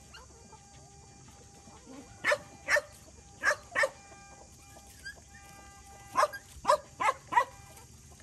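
A dog barking: two runs of four short, sharp barks, a few seconds apart.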